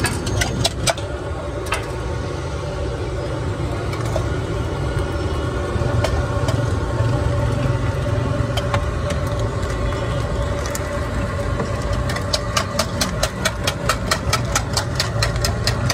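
Eggs being beaten in a steel tumbler with a spoon: a fast run of metallic clinks, several strokes a second, over the last few seconds, above a steady low rumble. A few scattered metal clicks come near the start.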